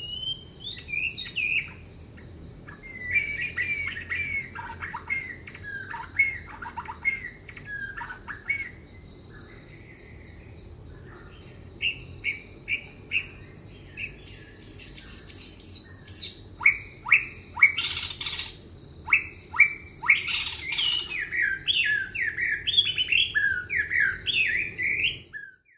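Several songbirds singing in a meadow chorus: quick whistled phrases and falling notes, sometimes overlapping, over a steady high pulsing chirr. The singing grows denser and louder in the second half, then cuts off suddenly near the end.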